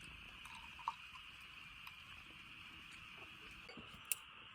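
Faint steady hiss, with a light click about a second in and a sharper click near the end.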